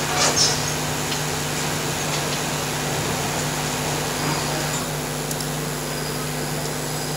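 Steady electrical hum and hiss, with a brief rustle a fraction of a second in.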